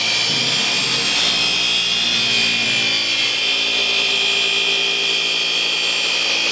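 Random orbital polisher running steadily with a high-pitched motor whine as its pad is worked across car paint.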